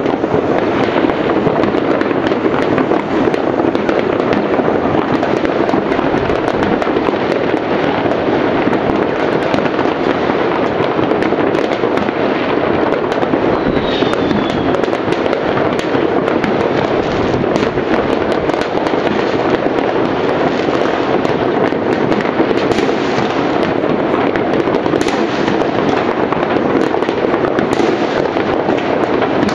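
Many fireworks going off across the neighbourhood in the distance: a continuous dense crackle of bangs and pops, with a short falling whistle about halfway through.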